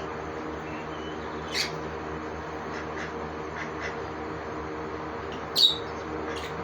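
Pet parrots giving short, sharp squawks: one about a second and a half in, a few faint chirps, and a louder one near the end, over a steady background hum.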